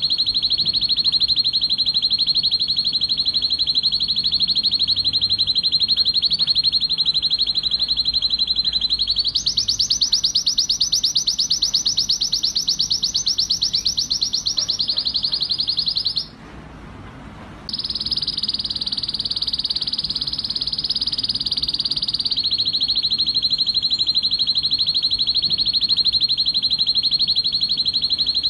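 Male canary singing a long run of very rapid, rolling trills in full breeding-season song. About nine seconds in the trill steps up in pitch. There is a brief break about sixteen seconds in, then it trills high again and drops back to the lower rolling trill a little after twenty seconds.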